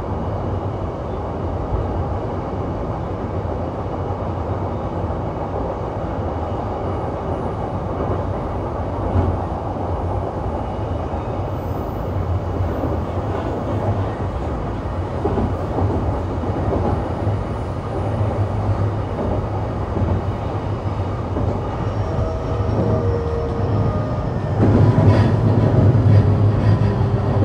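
Running noise inside the motor car of an E233-3000 series electric train: a steady rumble of wheels on rail. From about 22 seconds in, the Hitachi IGBT-VVVF inverter and MT75 traction motors add a whine that falls in pitch and grows louder, the sign of the train slowing.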